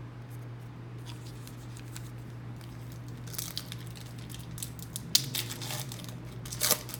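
A 1999 SP Authentic football card pack's foil wrapper being torn open and crinkled by hand, in sharp crackles that start about three seconds in and peak twice near the end, over a low steady hum.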